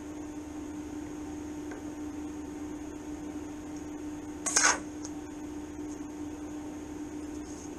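TIG welding arc struck on thin steel: one short, loud crackle about four and a half seconds in as the arc starts. After it the arc burns with little sound above a steady background hum.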